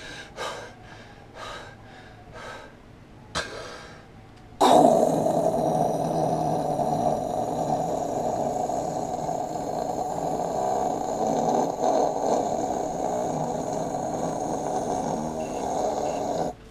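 A man making a helicarrier engine hum with his mouth into a close microphone: a few short breaths, then a steady, buzzing drone that starts suddenly about four and a half seconds in and holds for about twelve seconds before cutting off just before the end.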